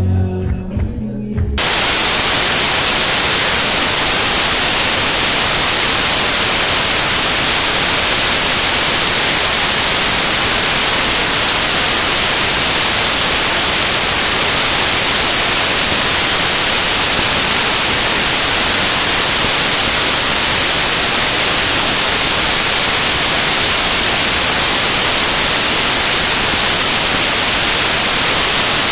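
Dance music cuts off suddenly about a second and a half in, replaced by loud, steady static hiss spread evenly across all pitches: a signal dropout in the recording, not a sound in the hall.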